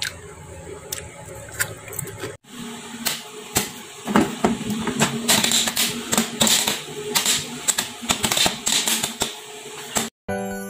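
Popcorn kernels popping inside a foil-pan stovetop instant popcorn pack on a gas burner: rapid, irregular sharp pops that are thickest from about four to nine seconds in, over a low steady hum.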